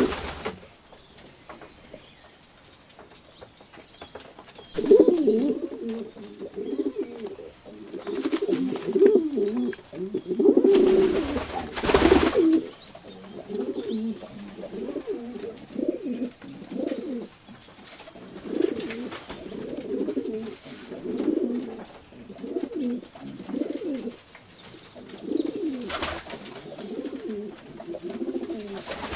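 Pigeons cooing in repeated low phrases, with several short bursts of rustling noise among them, the longest lasting over a second. The first few seconds are quieter before the cooing starts in earnest.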